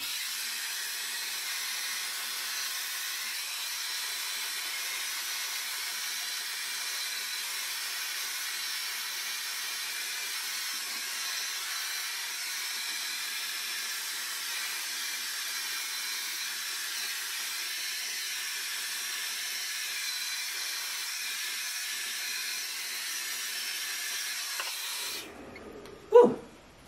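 GHD Helios hairdryer running steadily on a high heat setting, an even rushing hiss of air. It is switched off about 25 seconds in, and a brief loud rising sound follows just after.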